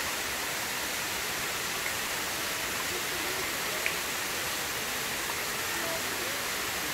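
Waterfall with many thin streams of water falling and splashing down a moss-covered rock face, a steady, even rush of water.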